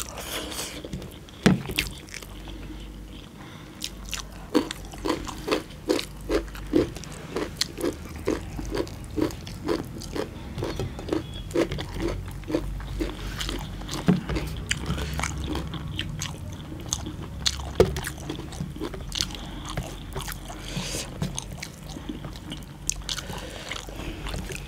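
Close-up chewing and mouth smacking of people eating mutton and curried rice by hand, with a steady run of chews a little more than two a second through the middle. Short clicks and scrapes of fingers working food on steel plates run among them.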